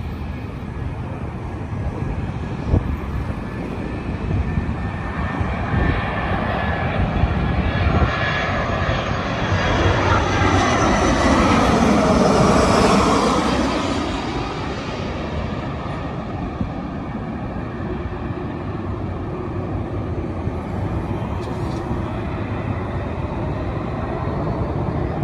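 Jet airliner on landing approach flying past close by: the engine noise swells to its loudest about halfway through with a swooping, phasing sweep as it passes, then fades back to a steady rumble.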